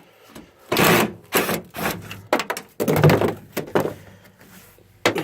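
A run of irregular knocks and clattering, about half a dozen, from tools and bolts working against a pickup's tailgate as its panel bolts are taken off.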